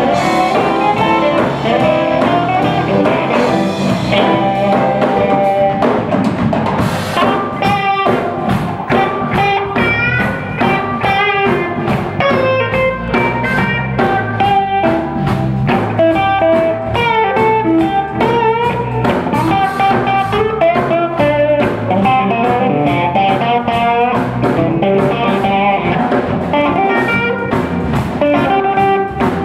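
Live blues band: electric guitar playing a lead line with bent notes over electric bass and a drum kit.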